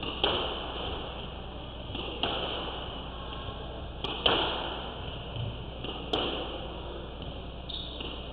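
Squash ball rally: the ball is struck by rackets and cracks off the court walls, four loud sharp hits about every two seconds, each with an echo.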